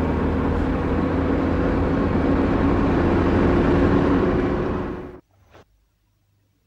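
Car driving at a steady speed: engine and road noise, which cut off abruptly about five seconds in.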